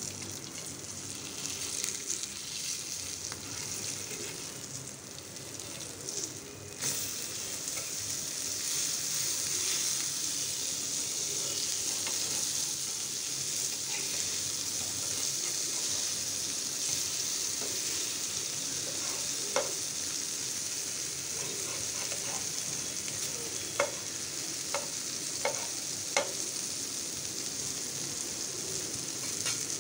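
Rava-coated Bombay duck fillets sizzling as they shallow-fry in a little oil, a steady hiss that grows a little louder about a quarter of the way in. In the second half a steel spatula clicks sharply against the pan a few times as the pieces are turned.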